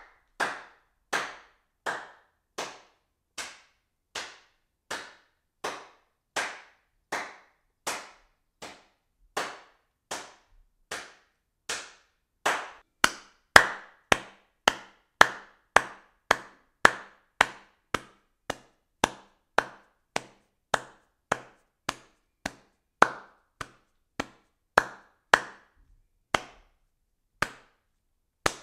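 Hand claps, one at a time with short gaps between them. At first about one every three-quarters of a second, then from about halfway through they come faster, about two a second, and louder, before slowing again near the end.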